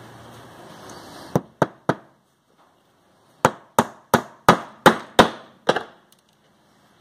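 Hammer driving small galvanized flat-head nails into a wooden beehive frame: three quick strikes, a pause, then seven steady strikes at about three a second.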